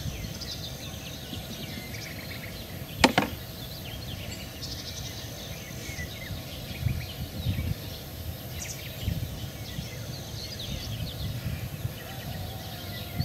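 Outdoor riverside ambience: a steady low rumble with faint bird chirps scattered through it. A single sharp click stands out about three seconds in, with a few softer ticks later.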